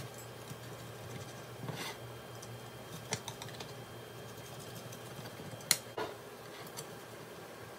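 Pizza cutter rolling through a crisp grilled tortilla wrap on a ceramic plate: irregular crackly crunches and light clicks, with two sharper clicks about six seconds in. A low steady hum runs underneath.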